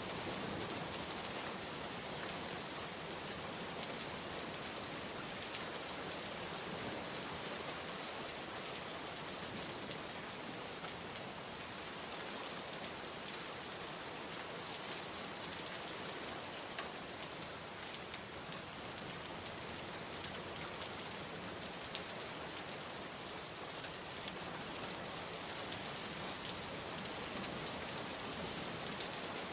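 Steady rain falling on a surface, with a few faint individual drop ticks.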